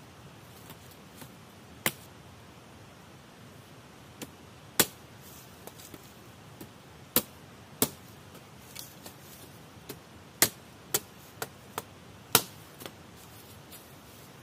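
Sharp wooden knocks and cracks from dead branches being struck and worked by hand: about a dozen single hits, spaced unevenly, with several louder strikes in the second half.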